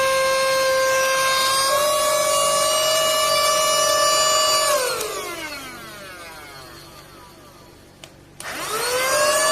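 Small cordless handheld vacuum cleaner's motor running with a steady whine, switched off about five seconds in and winding down with falling pitch, then switched back on near the end, the pitch rising as it spins up.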